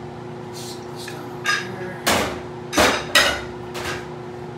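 Aluminium pressure cooker lid being lifted off and handled: about five metal clanks and knocks, the loudest two to three seconds in. A steady hum from the running laminar flow hood sits under them.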